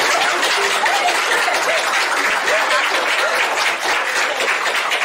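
A group of people clapping steadily after a toast, with a few voices cheering and calling out over the clapping.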